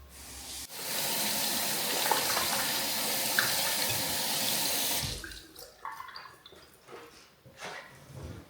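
Water running from a tap into a sink for about four seconds, switched on and off abruptly, followed by a few light knocks.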